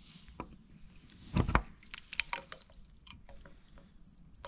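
Leftover coolant water dripping and splattering out of an opened engine thermostat housing, in many short sharp drips, with a louder knock about one and a half seconds in. The cooling system has already been drained, so only a small remainder is running out.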